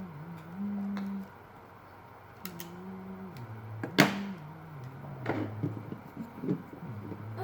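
Small motor of a Teddy Ruxpin tape mechanism running in spurts as its contacts are pushed together by hand, with no tape loaded. Its low hum jumps between a few speeds, with small clicks and one sharp click about four seconds in.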